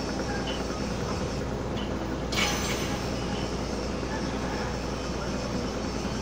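Cargo ship's engine machinery running steadily with a low, even hum, and a brief hiss about two seconds in.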